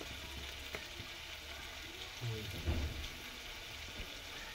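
Crackling and sizzling of a wood cooking fire, with a few sharp pops near the start and a low thump about two and a half seconds in.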